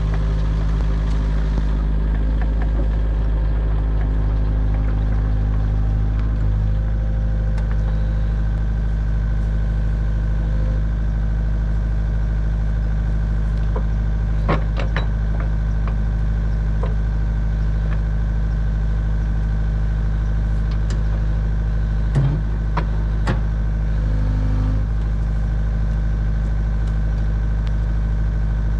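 Kubota U55-4 mini excavator's diesel engine running steadily at idle, with a few short sharp clanks about halfway through and twice more later.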